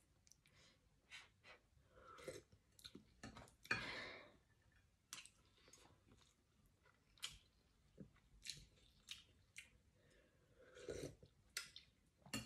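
Faint eating sounds: a metal spoon clicking and scraping against a pan many times, with chewing.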